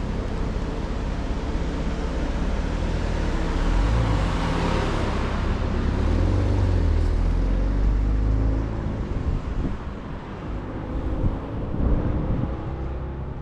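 Road traffic: a motor vehicle driving past with a low rumble, loudest about halfway through and fading after.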